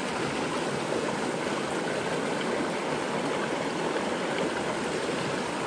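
Shallow, rocky mountain brook flowing fast over stones and gravel: a steady, even rush of water.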